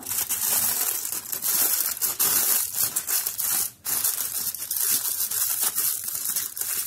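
Aluminium foil crinkling and crackling as hands fold and crimp the edges of a foil parcel shut, with a brief lull a little before four seconds in.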